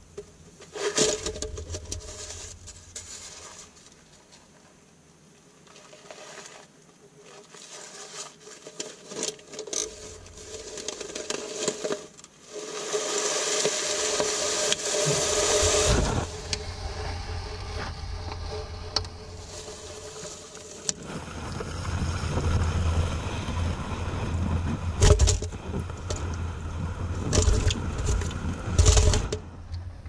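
A bird scrabbling inside a hole and pushing against a plastic-bottle trap: scraping and rustling with crinkling plastic, coming and going in spells, with a few sharp knocks near the end.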